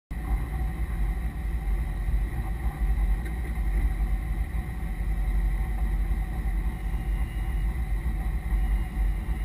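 Steady low rumble of a C5 Corvette Z06's LS6 V8 heard inside the cabin, with a thin steady high whine running over it.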